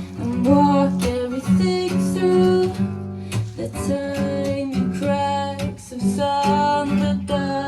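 Live song: strummed acoustic guitar with a voice singing held notes.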